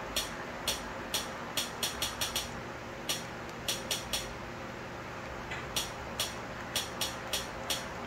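About twenty sharp clicks in quick runs with short pauses: the buttons of a Fire TV remote being pressed to step the cursor across an on-screen keyboard, letter by letter. A faint steady hum sits underneath.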